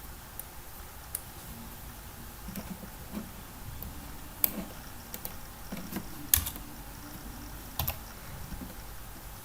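Scattered computer-keyboard clicks and taps, a dozen or so short separate strokes over a steady low background hiss. The loudest click comes about six seconds in.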